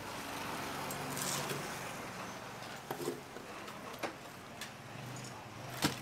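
About five short, sharp knocks of a knife blade against a wet wooden cutting board as thick ocean sunfish flesh is cut, the loudest just before the end. Under them runs a low steady hum, like an idling vehicle engine.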